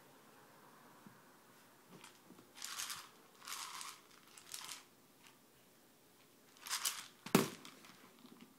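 Four short hiss-like noises, then a sharp knock a little over 7 seconds in, the loudest sound: a hard plastic treat ball landing on the wooden floor.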